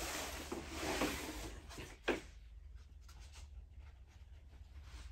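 Backpack fabric and webbing rustling and scraping as the pack is handled, with one sharp knock about two seconds in, then fainter rustling.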